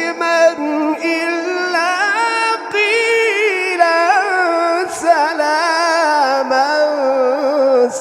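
A male voice chanting Quran recitation in melodic tajweed style, drawing out long ornamented notes that waver up and down, with a brief break for breath about five seconds in.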